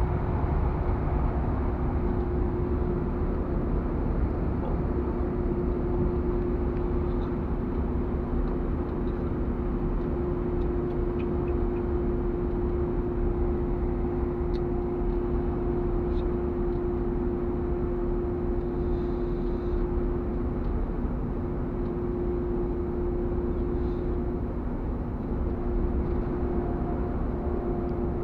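Truck engine and road noise while driving at a steady speed: a constant low rumble with a steady droning hum.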